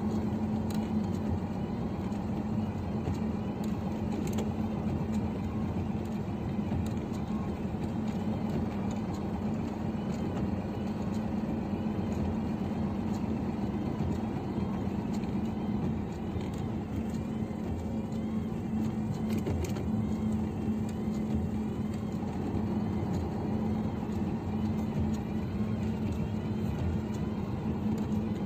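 Scania truck's diesel engine running steadily while under way, heard from inside the cab, with a constant low hum and tyre and road noise.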